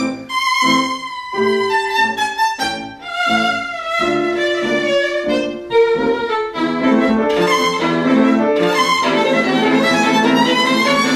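Violin playing a passage: short, separated notes over the first few seconds, then longer held notes.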